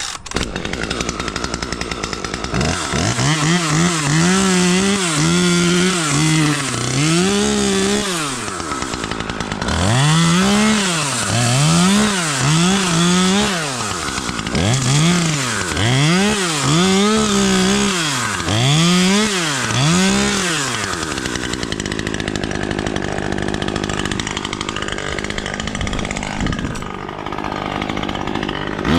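Chainsaw cutting wood, its pitch rising and falling about once a second for much of the time, then running more evenly near the end.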